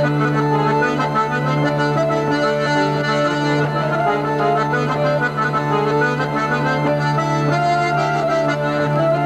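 Folk dance tune played by hurdy-gurdy, button accordion and bagpipes: a steady low drone is held throughout beneath a moving melody line.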